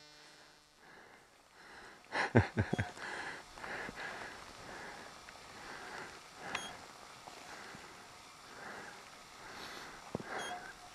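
Handling and ski noise from the person filming as they set off through powder snow. A cluster of sharp knocks comes about two seconds in, then soft, uneven swishing with a couple of single clicks.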